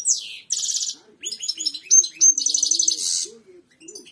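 Goldfinch singing: fast twittering trills, buzzy rattles and short rising whistles in quick phrases with brief breaks, fading out near the end.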